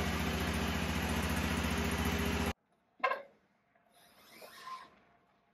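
Kubota zero-turn mower's engine running steadily, cutting off abruptly about halfway through, followed by a single sharp knock.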